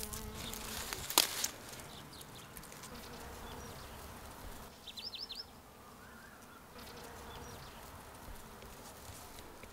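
A bee buzzing close by, its hum wavering and fading out within the first second, with faint insect buzzing after. A single sharp click comes about a second in, and a bird gives a quick chirp of four short notes near the middle.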